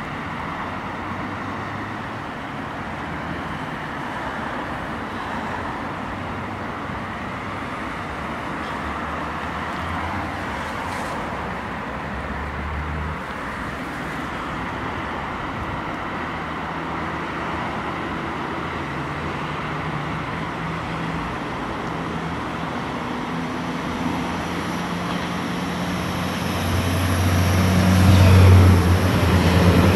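Alstom Coradia Lint 54 diesel multiple unit approaching, its engine drone growing louder over the last few seconds and loudest as it comes close near the end. Steady background traffic noise runs underneath.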